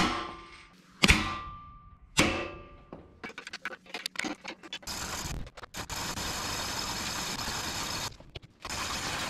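Three hammer blows on the steel base plate and shims of a 2-post lift column, a second apart. Each rings with a metallic tone that fades over about a second as the column is shimmed plumb. Light metal clicks follow as a wrench works the anchor-bolt nuts, then a steady rushing noise fills the last few seconds.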